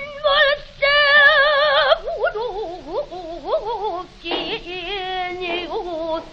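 Female pansori singer in a lament, holding long wavering notes with wide vibrato, with a run of rising swoops in the middle. The sound has the narrow range of an old record.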